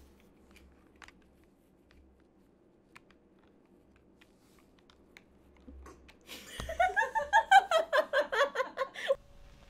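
A few faint single key clicks from a mechanical keyboard. Then, from about six and a half seconds, a woman's voice gives a quick run of about a dozen short pitched syllables, lasting under three seconds.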